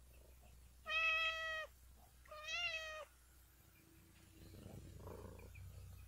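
Domestic cat meowing twice, two clear calls about a second long with a short gap between, the second bending up and down slightly in pitch. A soft rustling follows a little later.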